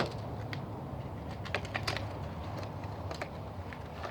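Light clicks and crinkles of plastic packaging as HeroClix booster packs and bagged figures are handled and opened, a few scattered ticks a second over a low steady hum.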